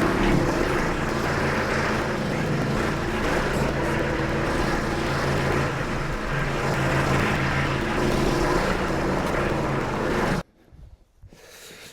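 Compact tractor diesel engine running steadily, then stopping abruptly about ten and a half seconds in.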